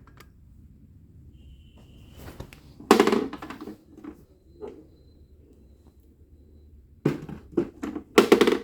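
Handling noise as a portable boombox is turned around to show its back: a loud clattering thump about three seconds in, then a run of knocks and rubs near the end.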